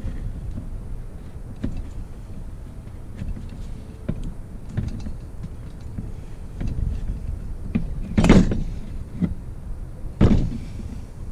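Metal engine parts and hand tools being handled, with scattered small clicks and two loud knocks, the first about eight seconds in and the second about two seconds later.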